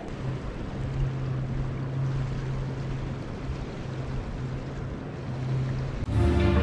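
Wind noise and gentle surf on a beach, with a steady low hum underneath, like a distant motor. Music begins near the end.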